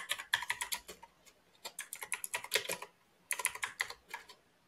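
Typing on a computer keyboard: quick runs of key clicks in three bursts, with short pauses between them.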